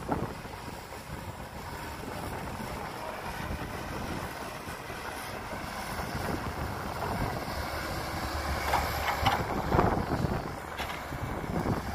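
Caterpillar 312B excavator's diesel engine working under load as it digs soil and swings its bucket to a dump truck, with a few sharp knocks about nine to ten seconds in. Wind buffets the microphone.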